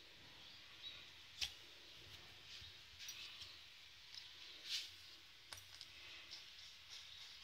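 Faint taps and clicks of a plastic cup pressed down through rolled donut dough onto the board, cutting out rounds, with two sharper clicks, one about a second and a half in and one near five seconds in.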